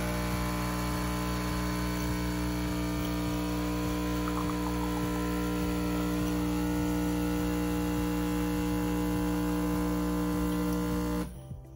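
De'Longhi espresso machine's pump humming steadily while pulling an espresso shot through the portafilter; it cuts off suddenly near the end as the shot is stopped.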